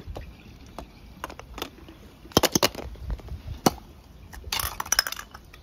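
Plastic and die-cast toy cars knocking and clattering as they are handled: scattered sharp clicks, a quick cluster of knocks about two and a half seconds in, one louder knock a second later, and a short rattling clatter near the end.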